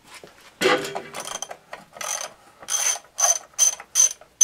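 Ratchet wrench clicking in a run of short strokes as a bolt is worked loose, the strokes coming faster toward the end.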